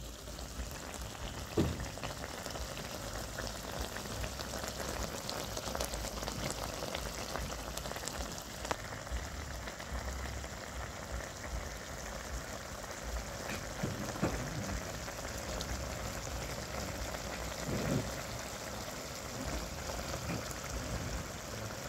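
Frog and eggplant stew simmering in a wok, a steady crackling and bubbling. A few short louder sounds stand out over it, the first about two seconds in.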